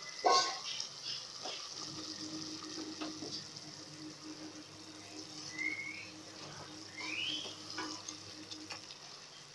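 Spice masala frying in oil in an aluminium pot, a steady sizzle, with a sharp knock just after the start and a wooden spoon stirring near the end. The masala is being fried until its raw taste cooks out.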